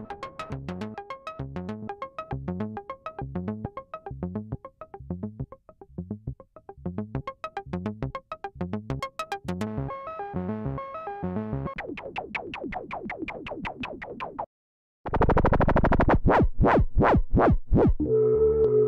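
Behringer CAT analog synthesizer loops playing back: a fast arpeggiated sequence of short repeating notes, which changes to a different pattern about twelve seconds in. After a brief gap a louder pulsing loop starts, and near the end a new loop with held tones begins.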